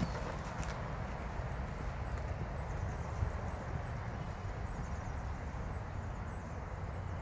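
An insect chirping: short high chirps repeating steadily about two to three times a second, over a steady low rumble.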